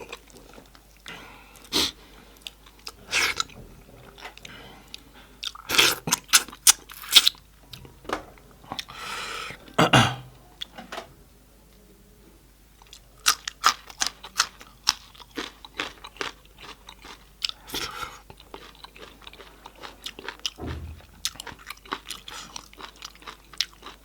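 Close-miked eating: wet chewing, crunching and lip smacks as goat-head meat and curry are eaten, with a brief lull about halfway through.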